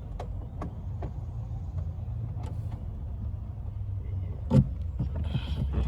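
Plastic interior trim of a car being worked loose by hand: scattered light clicks and knocks, with a sharper snap about four and a half seconds in, over a low steady rumble.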